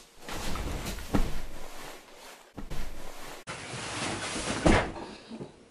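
Rustling and bumping of bed sheets and pillows as they are moved about, with sharp knocks about a second in and again near the end.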